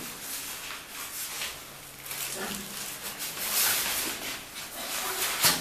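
Nylon fabric rustling as Velcro straps are pressed and wrapped around a playard frame, with a louder rasp of hook-and-loop about halfway through and a sharp snap near the end.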